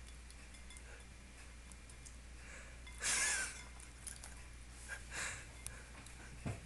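A ferret snorts sharply as it lifts its head out of a bowl of ice water, about three seconds in, with a softer second snort near five seconds. Faint clicks of ice against the crystal bowl are heard throughout, and there is a small thump near the end.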